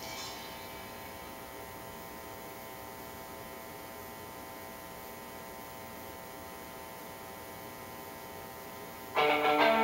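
Steady electrical mains hum, a buzz made of many even tones, in a gap in the soundtrack music. Guitar music comes in abruptly near the end.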